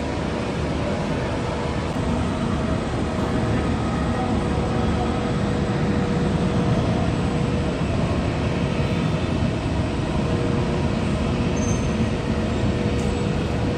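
Jet aircraft engines running with a steady rush and a faint held whine, growing a little louder about two seconds in.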